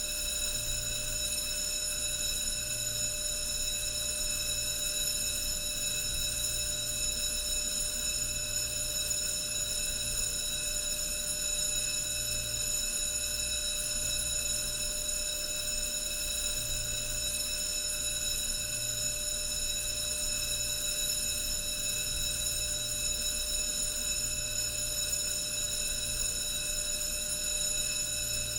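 Electronic alarm sounding one continuous steady tone, its pitch unchanging, over a low hum that swells and drops unevenly.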